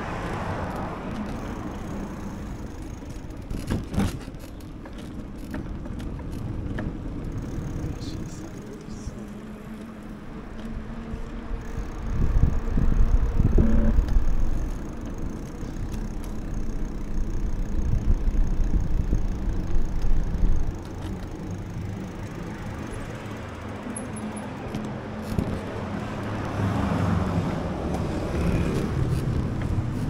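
City street ambience heard from a moving bicycle, with car traffic passing now and then. Wind rumbles on the microphone in two louder spells around the middle.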